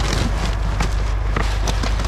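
Scattered knocks and clicks of junk being handled and shifted while rummaging through a dumpster, over a steady low rumble.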